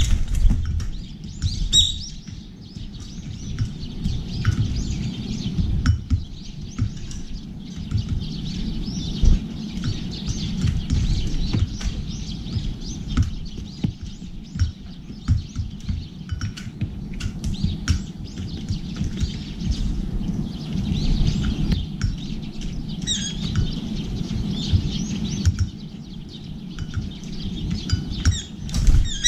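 Birds chirping in short, scattered calls, with frequent light taps as doves and brown-eared bulbuls peck seed from metal feeder dishes, over a steady low rumble. There is a flutter of wings near the start.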